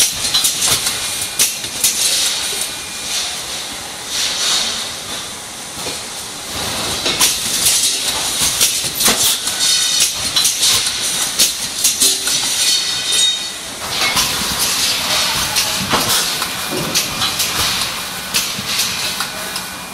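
Packaging line running with an HM 4000S servo cross-web labeller: a steady hiss of air with irregular clicks and clatter from the moving machinery, and short high tones now and then.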